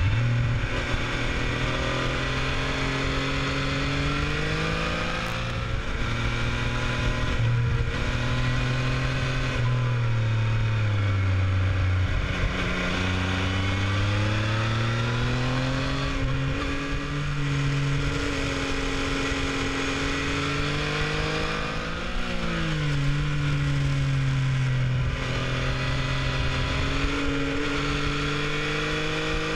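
Yamaha Tracer 900's three-cylinder engine under way, its revs climbing and dropping again and again as the bike is ridden through a run of bends, with sudden pitch steps between the climbs.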